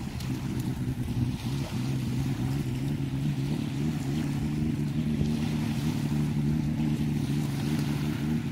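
Watercraft engine running steadily, a low, even drone that holds its pitch.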